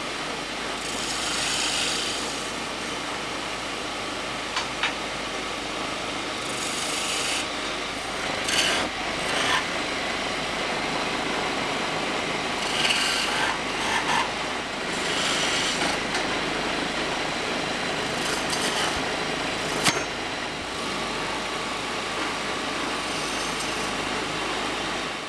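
Wood lathe running while a hand-held turning chisel cuts into a spinning wooden blank: a continuous scraping hiss, with sharper bursts of cutting every few seconds as the tool bites in.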